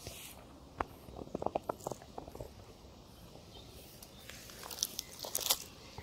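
Dry leaves and grit crackling and crunching underfoot in short, sharp clicks: a cluster about a second in, and a louder, denser run near the end.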